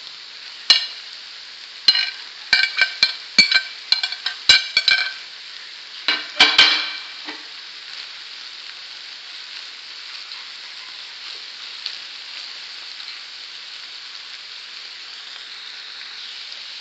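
Minced meat and vegetables sizzling in a frying pan. For the first seven seconds or so a spoon knocks and scrapes against the pan as freshly grated carrot and courgette are stirred in; after that there is only a steady sizzle.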